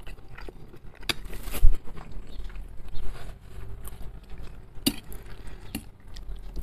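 Instant noodles being eaten close to the microphone: chewing, with scattered sharp clicks of a metal fork against a ceramic plate and a low thump about one and a half seconds in.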